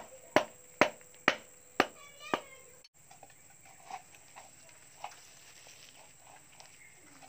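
Sharp, evenly spaced knocks, about two a second, stop abruptly a little before three seconds in. After that there are only faint scattered ticks and rustles as a hand works at the plant-stalk plug in the cement stove's fuel hole.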